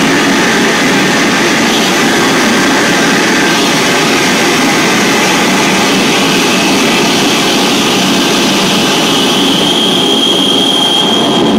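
Loud, dense wall of electronic noise from a live set played on tabletop electronics, unbroken with no beat. A high steady tone comes in near the end.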